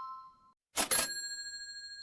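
Bright bell-like ding sound effects: the last of one dying away at the start, then a second sharply struck about three quarters of a second in and ringing on.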